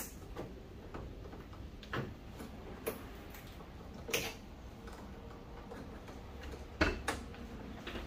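Irregular light clicks and knocks of metal parts inside a microwave oven being taken apart by hand, with two sharper knocks close together near the end.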